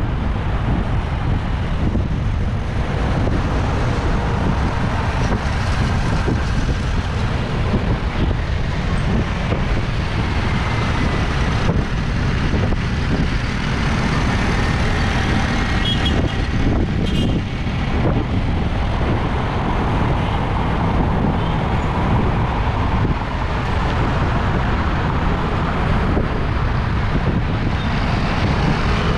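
Steady rush of wind on an action camera's microphone while cycling, with motor traffic running alongside.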